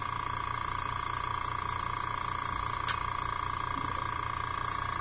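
Airbrush hissing out air in two spells of about two seconds each while its trigger is held, with a click between them, over a steady electric hum. Air is being let through the airbrush to read the working pressure on the compressor's regulator gauge, set to about 30 PSI.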